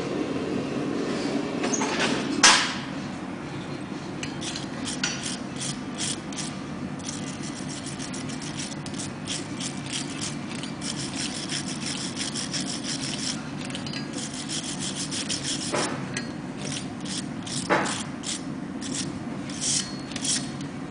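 Hand hammer striking red-hot steel on an anvil: a loud blow about two and a half seconds in, then runs of quicker, lighter blows several a second, with a few harder strikes near the end, over a steady low rumble.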